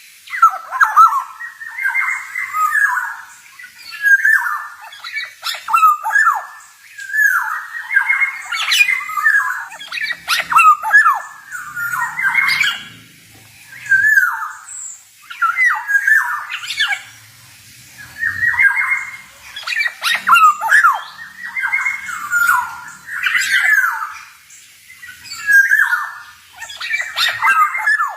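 Male black-naped oriole (kepodang) singing: short, rapid phrases of varied notes, one about every two seconds with brief pauses between.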